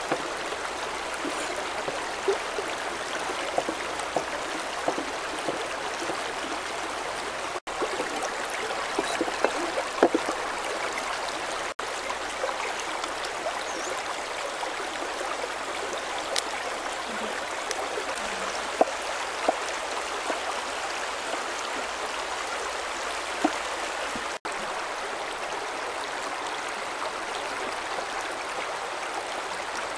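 Shallow rocky river flowing and babbling steadily over stones, with a few light clicks scattered through. The sound breaks off for an instant three times.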